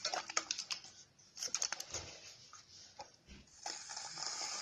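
Light clicks and taps of an aerosol shaving-foam can being handled, then near the end the can starts spraying foam with a steady hiss.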